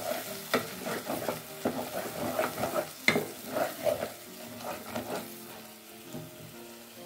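Wooden spatula stirring and scraping a sizzling spice paste with blended tomato in a stainless steel pot, with irregular scrapes and knocks against the pot over the frying sizzle. The strokes thin out over the last couple of seconds, leaving mostly the sizzle.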